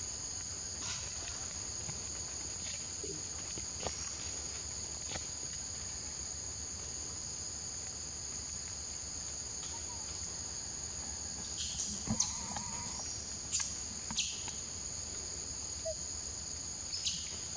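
Steady, high-pitched drone of forest insects, two even pitches held together, with a few short clicks and rustles in the second half.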